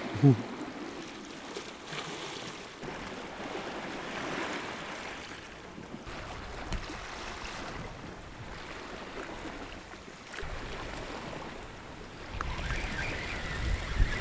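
Sea washing against the rocks, with wind buffeting the microphone that grows stronger later on. Near the end a thin whirr of a fixed-spool reel being wound in as the rod bends into a hooked fish.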